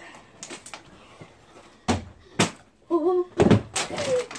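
Partly filled plastic water bottles thudding as they land after flips, about half a dozen sharp knocks, with the loudest cluster about three and a half seconds in. A short voiced sound comes just before that cluster.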